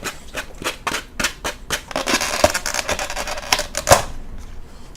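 Plastic take-out ramen containers being handled and opened: a quick run of sharp clicks and crackles, with a louder snap near the end.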